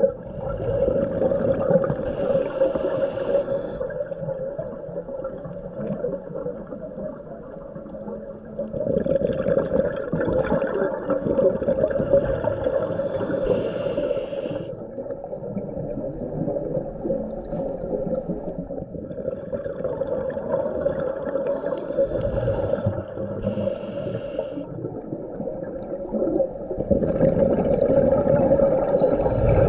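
Scuba diver breathing through a regulator underwater: hissing inhalations every several seconds and louder stretches of bubbling exhalation, over a steady hum.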